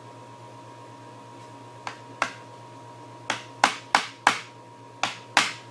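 Sharp hammer knocks on a wooden chair part being worked loose for dismantling: eight hits in quick pairs, starting about two seconds in. A faint steady hum runs underneath.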